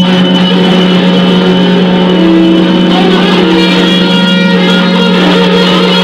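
Loud free-improvised noise music from prepared guitar and bass guitar: a steady low drone under a dense, shifting layer of higher tones, with a brief held note about two seconds in.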